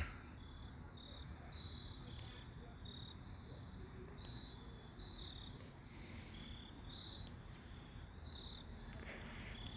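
Faint background noise with a low rumble and short high-pitched chirps every so often.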